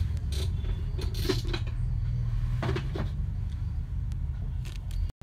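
Plastic knocks and clatter as the Braun citrus juicer's jug and reamer cone are handled and lifted off the motor base, a handful of separate knocks over a steady low hum.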